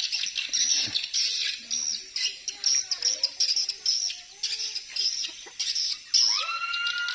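Birds calling: a run of short, high, arching chirps repeated every half second or so, joined near the end by a louder, lower call that rises and falls.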